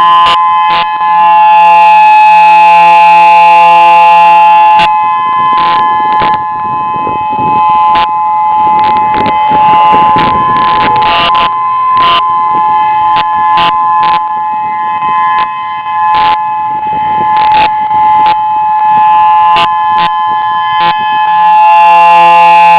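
Federal Signal EOWS 612 electronic outdoor warning siren sounding a steady two-note tone during a test. It swells fullest and loudest from about a second in until about five seconds, and again near the end, with a rougher noise, scattered clicks and a faint falling tone underneath in the middle.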